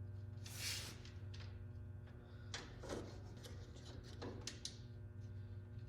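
Faint clicks and a short scrape of a small part being worked back into place by hand, over a steady low hum.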